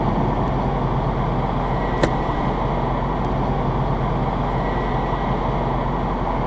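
A car running: a steady low drone with one short click about two seconds in.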